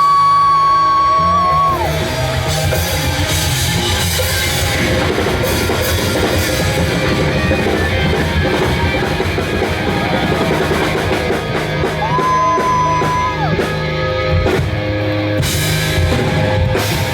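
Rock band playing live: drum kit, bass and electric guitar at full volume, with a long held high note glided up near the start and another about twelve seconds in.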